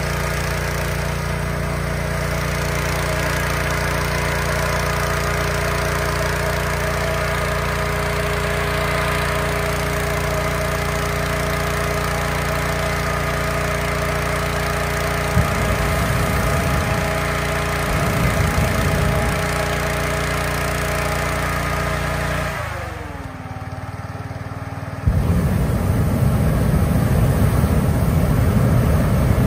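Engine-driven inflator fan blowing air into a hot air balloon envelope, running steadily. About 22 seconds in its pitch drops as it is throttled back. A few seconds later the balloon's propane burner fires with a loud rushing blast, and two short bursts of the same rushing noise come a little past halfway.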